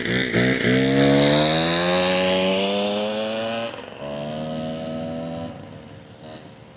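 Small gas engine of a stand-up motor scooter accelerating away, its pitch rising steadily for about three seconds. It breaks off about four seconds in, carries on at a lower steady pitch, then fades.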